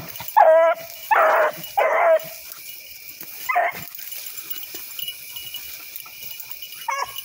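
Rabbit hound baying on a rabbit's trail: three long bays close together in the first two seconds, another about three and a half seconds in, and a short one near the end.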